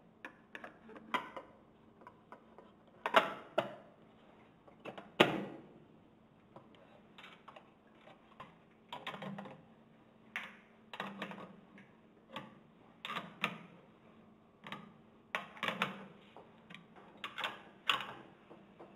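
Metal knocks as the pump's cover plate is seated on the casing, two loud ones about three and five seconds in. Then a wrench clicks in short bursts, about one a second, as the cover nuts are tightened.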